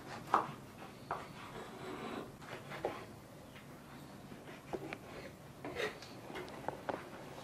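A kitchen knife slicing a tomato on a wooden cutting board, the blade knocking against the board in irregular taps.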